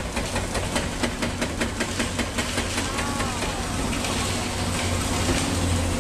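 Heavy demolition excavators breaking up a concrete viaduct, their diesel engines running steadily. A rapid knocking of about five blows a second fills the first half, with a hiss of water spray and a brief wavering squeal about three seconds in.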